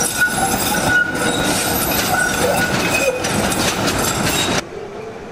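Trieste's line 6 electric tram running along its track: a rattling rumble of wheels on rails with a steady high-pitched whine above it. About four and a half seconds in, the sound drops suddenly to a quieter run.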